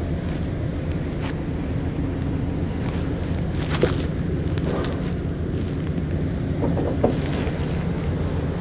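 Heavy engine machinery on a drilling rig running with a steady low drone. Two short sharp knocks come about four and seven seconds in.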